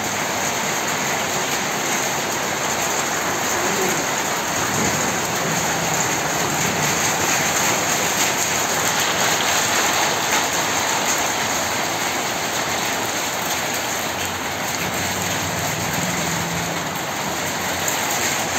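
Rain falling steadily, an even hiss that holds at the same level without let-up.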